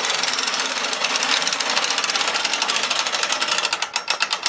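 Several hand-cranked winches on a portable boat lift being wound together, their ratchet pawls making a rapid, dense clicking that thins to separate clicks near the end and then stops.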